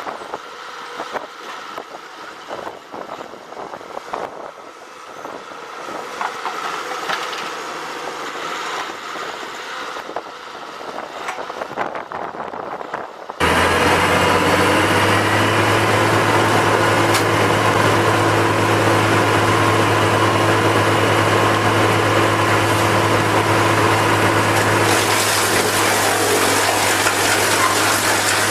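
Engine of heavy machinery running. About halfway through, a louder, very steady engine drone with a deep hum cuts in abruptly.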